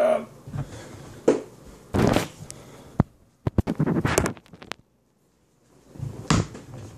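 Handling noise: scattered knocks, clicks and rustling bumps as the phone camera is touched and things are grabbed off the table, with a short quiet gap before a last bump.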